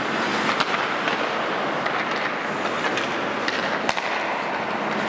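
Ice rink sound: skate blades scraping and gliding on the ice, with several sharp clacks of hockey sticks and pucks, the loudest about four seconds in.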